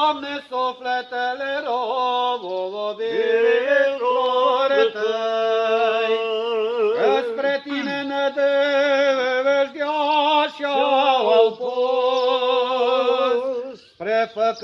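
Unaccompanied Orthodox church chant from a memorial service: a slow, melismatic sung line with long wavering notes over a steady held low note, breaking off briefly near the end.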